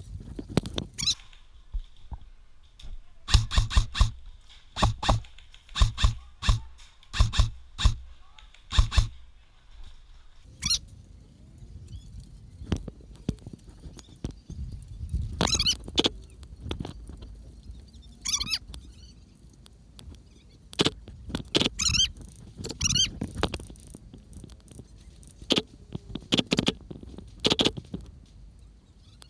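Airsoft gunfire: sharp single shots and knocks, about a dozen in quick succession in the first ten seconds, then more scattered ones through the rest.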